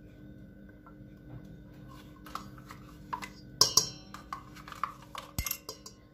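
A plastic yogurt cup squeezed and knocked against the rim of a stainless-steel mixing bowl as its contents are scraped out: scattered clicks and knocks, the loudest about three and a half seconds in and again near the end, over a faint steady hum.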